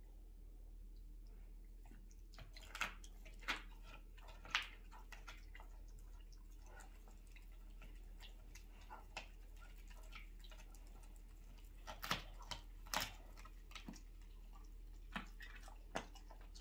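Great Pyrenees gnawing a lamb rib: scattered sharp crunches and clicks of teeth on bone, in clusters a few seconds apart, over a low steady hum.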